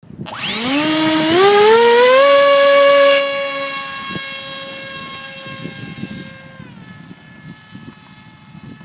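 Brushless electric motor and propeller of a Dynam Hawk Sky RC glider spooling up in steps to a high, steady whine. It then holds near full throttle, dips slightly in pitch and grows fainter over the last few seconds.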